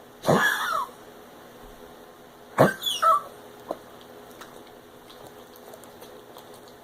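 A pug coughing and hacking as if bringing something up: one harsh cough about half a second in, then a double hack at about two and a half seconds. It is a recurring cough whose cause vets have not been able to find.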